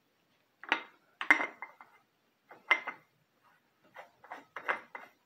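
Sharp metallic clicks and clinks from hand work around the oil filter on a Mercury 40 hp four-stroke outboard: a few single clinks at first, then coming quicker, about three a second, near the end.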